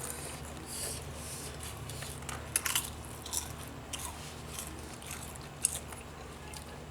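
Mouth chewing crunchy spicy corn snack chips: an uneven run of crunches, with a few sharper ones about two and a half seconds in and one near six seconds.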